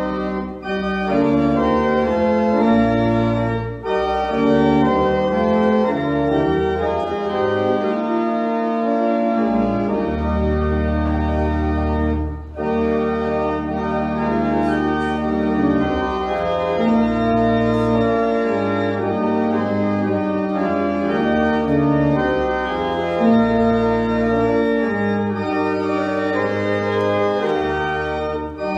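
Pipe organ playing sustained chords over long-held pedal bass notes, with short breaks between phrases about 4 and 12 seconds in.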